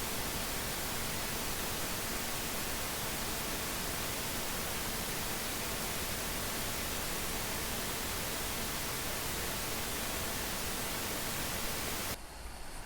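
Heavy rain falling as a steady, even hiss that stops abruptly near the end.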